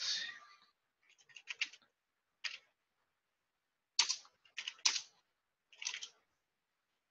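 Computer keyboard being typed on: short bursts of a few quick keystrokes with pauses between, the loudest strokes about four and five seconds in, stopping about six seconds in.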